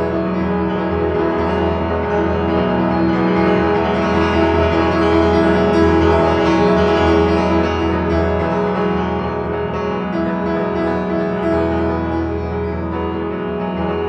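Solo piano playing, with a steady low bass and held chords ringing on; it swells a little toward the middle and eases off near the end.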